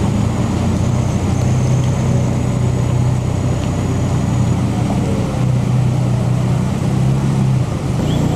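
Car engine idling steadily, a low even drone.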